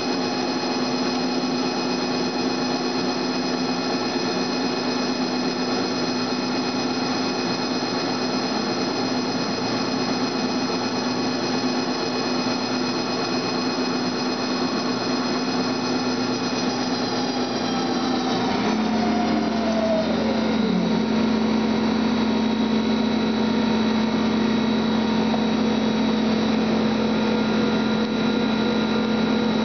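Friction stir welding machine's spindle running with a steady, many-toned whine as the rotating tool plunges into 2219-T87 aluminium plate, its shoulder seating on the surface. About two-thirds of the way through, one tone slides down in pitch and a lower, slightly louder hum takes over.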